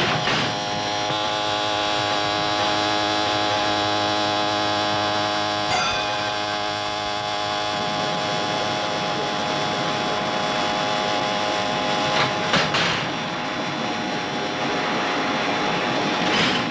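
Train running: a steady pitched drone for about the first eight seconds, then a rushing noise with a few clacks near the end.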